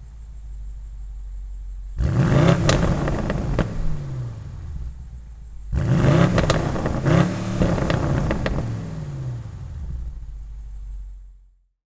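BMW M850i's twin-turbo V8 idling, then revved in two bursts of quick throttle blips, about two seconds in and about six seconds in, falling back to idle between and after them. The sound cuts off near the end.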